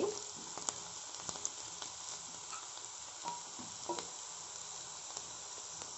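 Chopped vegetables sizzling in oil in a frying pan, just softened under the lid, as a spatula stirs them, with a few light scrapes and knocks of the spatula on the pan.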